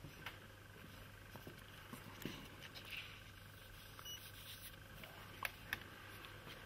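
Quiet room tone with a steady low hum, and a few faint clicks and soft rustles from hands handling a plastic tub of fine sand and letting the sand run through the fingers.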